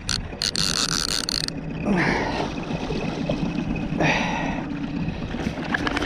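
Boat's outboard motor running with a steady low hum, wind buffeting the microphone, and a hissing burst of water splashing about half a second in as a musky is fought at the side of the boat.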